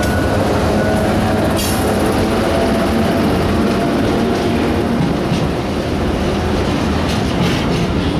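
Class 90 electric locomotive passing close, followed by a freight train of container wagons rolling past at speed: a loud, steady rumble of wheels on rail with a few clacks over rail joints.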